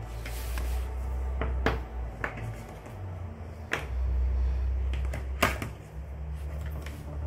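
A few sharp clicks and taps over a low handling rumble, as oil pastels and the paper are handled on a tabletop. The loudest click comes about five and a half seconds in.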